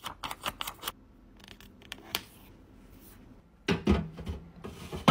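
Sharp clicks and taps of long fingernails and a card label against a clear acrylic storage bin as the label is pressed on. A quick run of clicks comes in the first second, and a few heavier knocks from the plastic bin being handled come about three-quarters of the way through.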